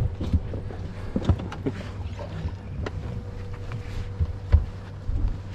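Bass boat sounds: a steady low hum with a faint thin steady tone above it, and irregular knocks and taps on the deck.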